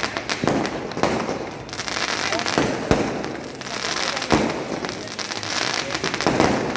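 Fireworks going off: a dense crackle cut through by repeated sharp bangs, the loudest about three seconds in and again a little after four.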